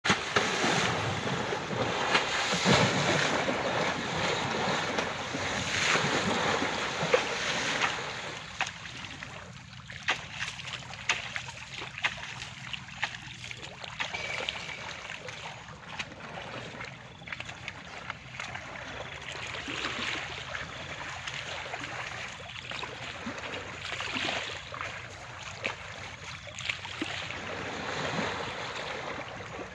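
Asian elephant splashing and wading in shallow floodwater, the water sloshing and churning. Louder for the first eight seconds or so, then quieter with scattered small splashes.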